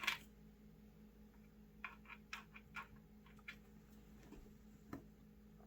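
Faint, scattered small clicks of a black spudger prying under the Face ID infrared sensor and its cable on an iPhone XR display, over a low steady hum. The clicks come in a cluster after about two seconds, with one more near the end.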